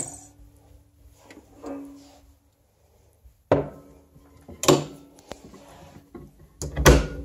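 Wooden knocks from a Victrola phonograph cabinet being closed up: the lid and the front doors shut with three sharp knocks, the loudest near the end.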